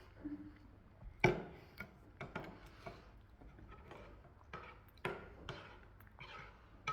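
Close-miked chewing of momo: irregular wet clicks and mouth noises, about a dozen over several seconds.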